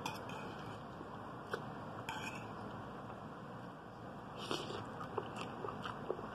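Faint eating sounds: a few light scrapes and clicks of a fork lifting egg noodles from a plate, then soft mouth clicks of biting and chewing.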